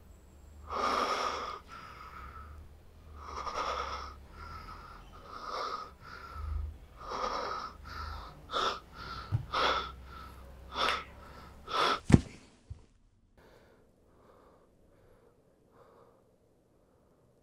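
A man gasping and wheezing for breath, the gasps coming shorter and faster. About twelve seconds in there is a sharp thud, the loudest sound, and then a few faint breaths fade away.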